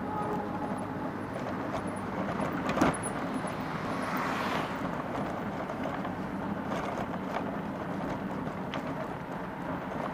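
Street traffic and road noise heard from a moving electric bike: a steady rumble, a sharp knock about three seconds in, and a vehicle passing close by around four to five seconds in.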